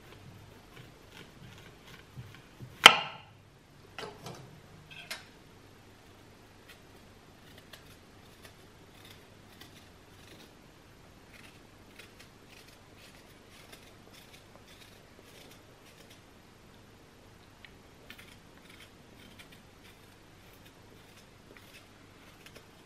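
Knife cutting through fresh ginger root onto a wooden cutting board: one sharp knock about three seconds in and two lighter ones soon after. Then faint, scattered scraping as the ginger's skin is peeled.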